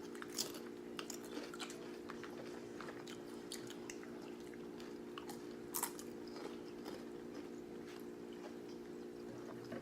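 Crunching on Nacho Cheese Doritos nachos: scattered crisp crunches and chewing, a few louder than the rest, over a steady low hum.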